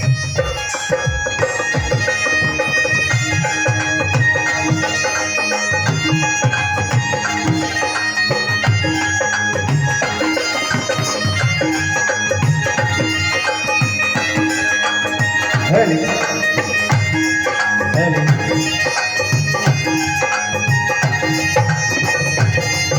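Dhol drumming, quick continuous strokes, under a melody of held pitched notes.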